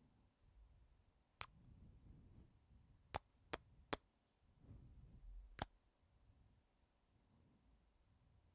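Close-miked kisses: five short, sharp lip smacks, three of them in quick succession, over quiet slow breathing.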